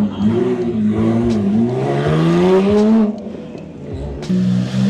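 Porsche engines revving as cars pull away. One engine note wavers, then climbs steadily for about a second and a half before falling away about three seconds in. Another engine comes in loud near the end.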